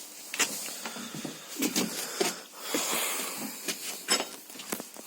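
Scattered clicks and knocks of tools and parts being handled during front-strut removal work, with a brief hiss about three seconds in.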